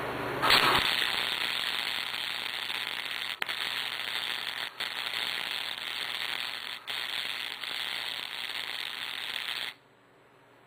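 Wire-feed welder arc crackling steadily as a bead is run joining a steel fence-rail leg to a propane tank. It strikes about half a second in, breaks off briefly three times, and stops abruptly near the end.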